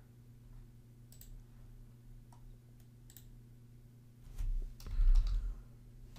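Computer mouse clicks and keyboard typing over a low steady hum. There are a few sparse clicks, then a short run of heavier key taps with low thuds about four seconds in.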